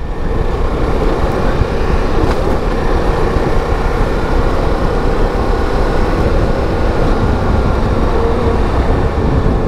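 Ducati Multistrada V4S's 1158 cc V4 engine running steadily at highway cruising speed with a constant hum, heard from the rider's seat under heavy wind rush.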